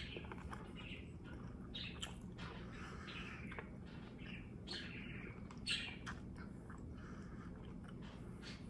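Close-miked chewing of a mouthful of sautéed asparagus with the lips closed: soft wet mouth clicks and smacks, with two sharper clicks, one right at the start and one a little before six seconds in.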